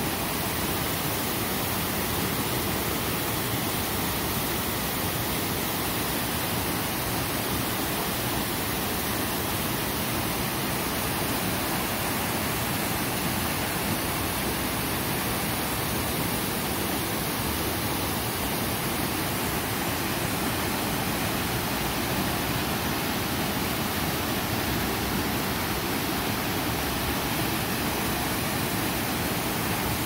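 Small creek waterfall, water cascading over rock ledges into a pool in a steady, unbroken rush.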